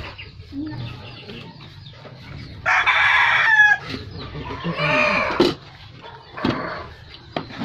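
Rooster crowing: a long crow about three seconds in that ends on a falling note, followed by a second crow about five seconds in.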